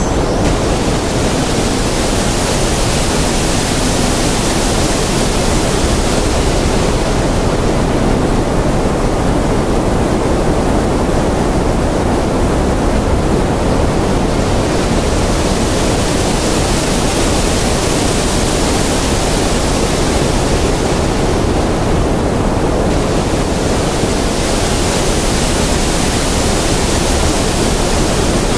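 Effects-generated 'space' noise soundscape: a steady, loud rushing hiss. Its upper part swells and fades slowly every several seconds, much like surf.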